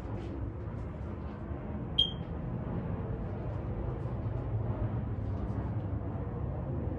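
2001 Hampton Bay St. Claire ceiling fan running on high speed, a steady low hum with air noise. About two seconds in, a single short high-pitched beep.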